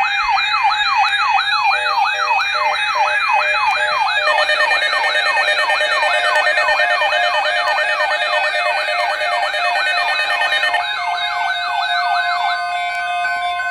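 Electronic siren yelping: fast rising pitch sweeps, roughly three or four a second. A second layer of siren tones joins about four seconds in, and near the end the sweeps stop, leaving a steady tone.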